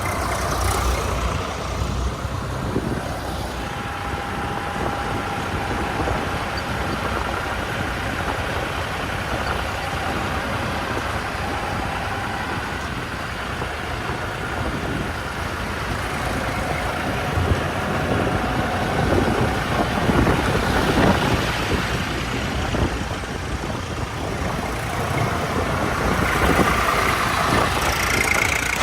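Diesel engine of a JCB 3DX backhoe loader running steadily while it digs and loads mud, with a faint whine that holds its pitch for several seconds at a time. It grows louder and rougher for a few seconds about two-thirds of the way through.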